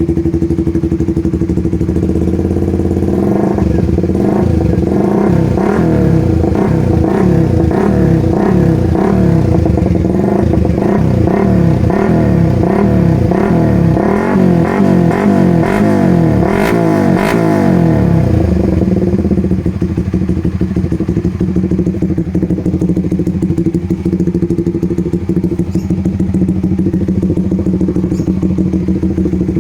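Suzuki Raider R150 Fi single-cylinder engine, open Namban aftermarket exhaust, idling. About three seconds in it is revved in quick repeated throttle blips, roughly one a second, for some fifteen seconds, then settles back to a steady idle.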